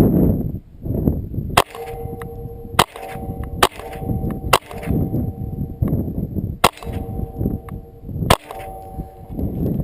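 .22 LR rifle fired six times at an uneven pace, each a sharp crack. Most shots are followed by a clang and a ringing tone from the struck barrel target.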